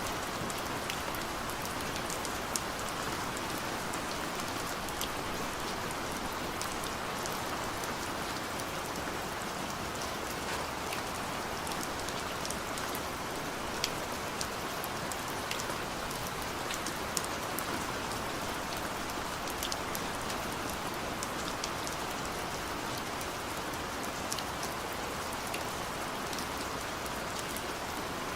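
Steady rain falling, a constant hiss with many small drop ticks on a hard surface scattered through it.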